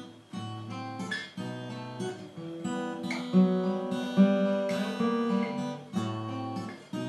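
Acoustic guitar played alone, an instrumental passage between sung verses: plucked notes and chords, each ringing on and fading, a little louder around the middle.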